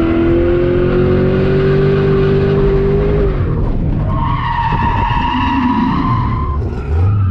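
Ford Mustang's 4.6-litre three-valve V8 revving high, its pitch climbing steadily for about three seconds, then the tyres squealing in one long steady screech as the car slides in a drift, heard from inside the cabin.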